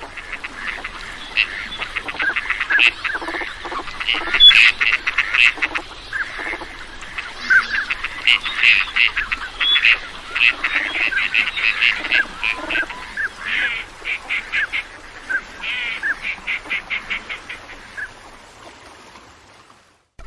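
Ducks calling: rapid runs of short, sharp quacks in bursts, dying away shortly before the end.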